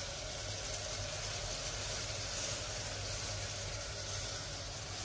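Steady low sizzle of chopped onion and tomato frying in oil in an aluminium pressure cooker on a gas burner, with a faint low hum underneath.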